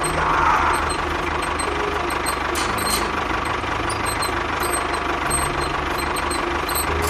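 An engine idling with a steady, even low chugging and faint ticks over it.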